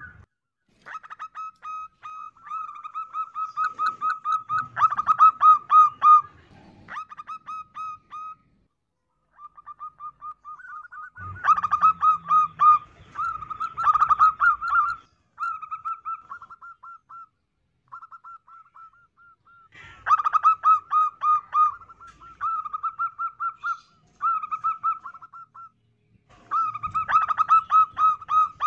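Zebra dove cooing: rapid runs of short, repeated coo notes, several a second, in phrases a few seconds long with brief pauses between.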